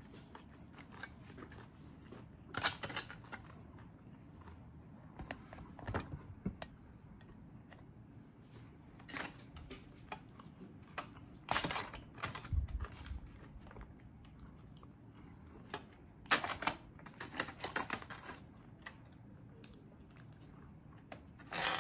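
Eating lobster: irregular crisp clicks, smacks and crackly clusters of chewing, with a fork picking at the shell pieces, coming in scattered bunches every few seconds.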